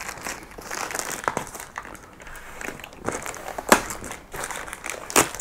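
Plastic parcel wrapping crinkling and rustling as it is worked and cut open with a knife, with scattered crackles and two sharper cracks in the second half.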